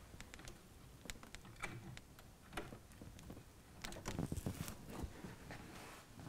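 Faint scattered clicks and taps of a hand handling an OO gauge model diesel locomotive on the track, uncoupling it from its goods wagons, with a small cluster of clicks about four seconds in.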